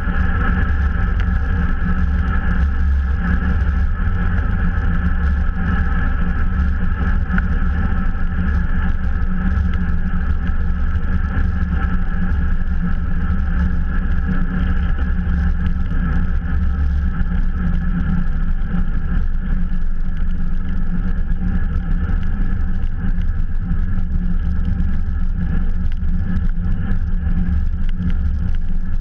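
Road bike rolling along asphalt at speed: a steady rush of wind over the bike-mounted camera's microphone mixed with the hum of the tyres on the road, with no changes.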